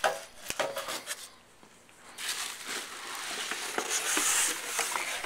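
Aquarium packaging being handled: a few sharp clicks and knocks, then about three seconds of steady rustling and crinkling of the wrapping.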